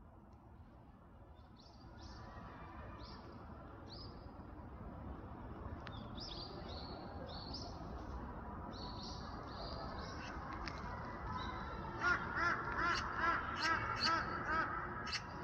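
Magpie calling: a loud, harsh chatter of about eight quick calls near the end, with short, high bird calls repeating before it.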